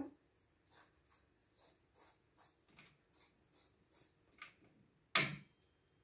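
African grey parrot's claws tapping softly as it walks across a satellite receiver, light clicks about twice a second, then one short, loud, sharp noise about five seconds in.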